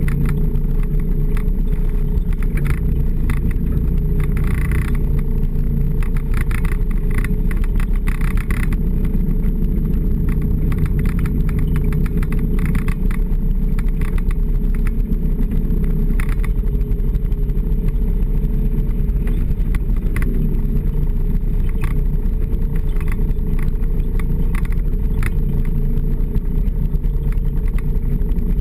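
Snowmobile engine running at a steady cruise along a packed snow trail, with scattered light rattles and clicks over the steady drone.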